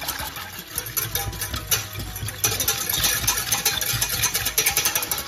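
Metal wire whisk beating milk in a stainless steel saucepan: a fast, continuous rattle of the wires clicking against the pan.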